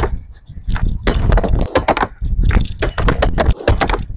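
Skateboard on a wooden ramp: wheels rumbling over the boards, and the deck clacking and slapping against the wood in a run of sharp knocks and clatters.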